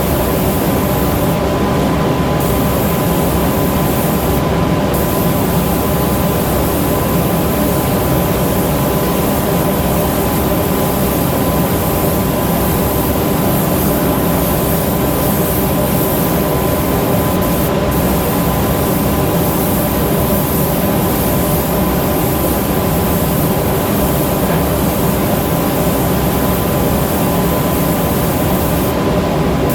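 A motor running steadily without a break: an even, loud whir with a constant hum that never changes in pitch or level.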